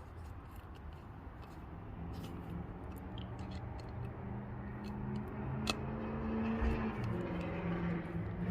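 Scattered light clicks and taps of small parts and a screwdriver as the mass airflow sensor's screws go back in, over a low steady hum that grows gradually louder.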